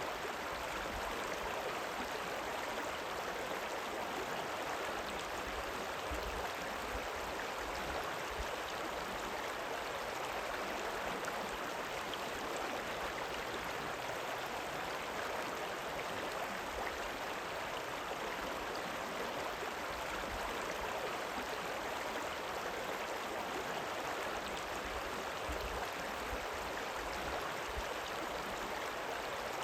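A river rippling, with a steady rush of running water.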